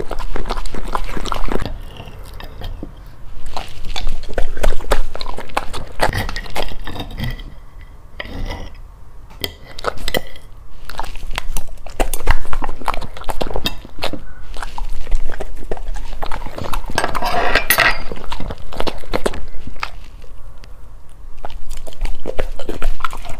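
Golden retriever chewing and smacking wetly on raw beef steak and mandarin segments, in a run of quick clicks and smacks, with light clinks of a steel knife and fork against a ceramic plate.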